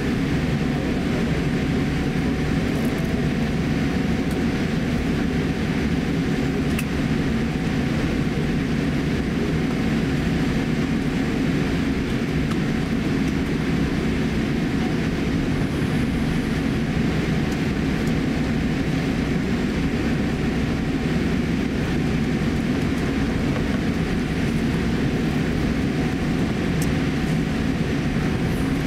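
Steady cabin noise of a Boeing 787-8 taxiing after landing: the Rolls-Royce Trent 1000 engines at idle and the rumble of the airframe rolling on the taxiway, a constant low hum with a faint steady tone above it.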